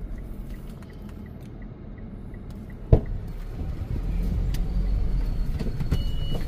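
Mitsubishi vehicle's engine rumbling in the cabin, with faint even ticks about three a second for the first few seconds. A single sharp thump comes about three seconds in, and the engine rumble grows louder from about four seconds in.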